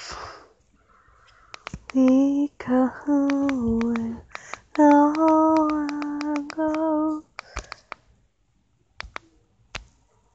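A voice singing long held notes in two phrases, one starting about two seconds in and another about five seconds in, the pitch stepping down within each. Sharp clicks sound throughout.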